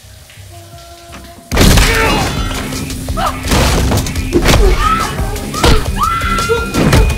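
Quiet tense film music, then about a second and a half in a sudden loud crash sets off a fight: a rapid string of heavy hits and thuds over dramatic music, with a woman screaming several times.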